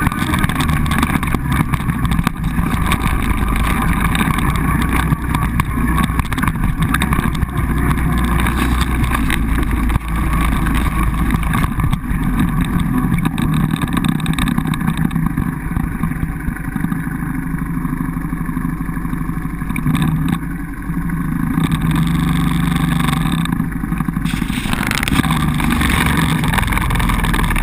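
Quad bike (ATV) engine running steadily while riding across rough grass, heard on board the machine.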